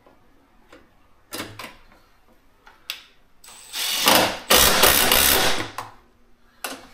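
A few light clicks, then a Milwaukee Fuel cordless driver running in two short runs over about two seconds as it drives the screws that hold a brace down, with a brief blip of the trigger near the end.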